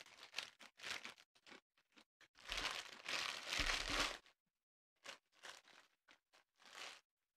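Foil chip bag crinkling and crumpling in the hands close to a condenser microphone: scattered short rustles, one longer, louder crumple in the middle, then a few brief rustles as it is set down.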